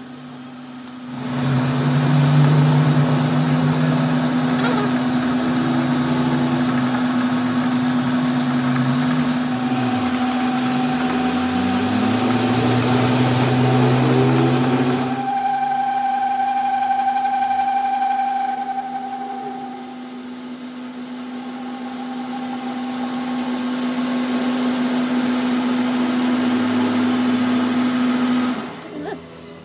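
Metal lathe turning a steel workpiece: a steady motor and spindle hum under the hiss and scrape of the tool cutting, with the cutting noise loudest in the first half, easing off and building up again later.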